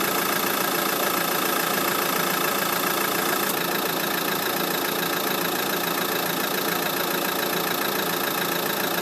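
Dacia Duster idling with the air conditioning running, a steady hiss over the engine note; the hiss is the strange noise that comes with the air conditioning on. The highest part of the hiss drops a little about three and a half seconds in.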